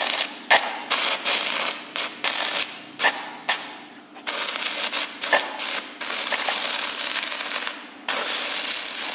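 Stick-welding arc from an electrode held in pliers, fed by three 12-volt car batteries wired in series for about 38 volts. The arc crackles and sizzles in short broken bursts over the first few seconds as it is struck and breaks, then burns steadily in stretches of about two seconds each.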